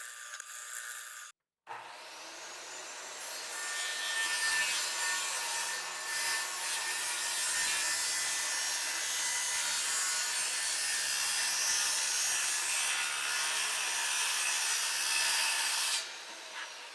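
Electric power tool working wood: it starts up about two seconds in, runs steadily for about fourteen seconds, then cuts off and winds down near the end.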